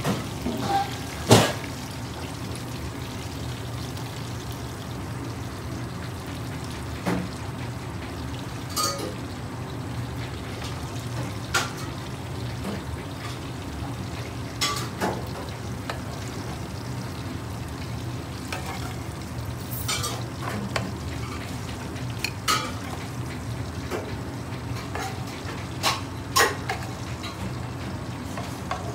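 Steady frying sizzle over a low hum, broken by about a dozen sharp clicks and knocks of utensils, pan and ceramic platter as fried chicken pieces are lifted out and set down. The loudest knock comes about a second in.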